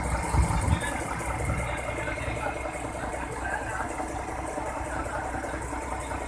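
Heavy diesel engine idling steadily, with a couple of low thumps about half a second in.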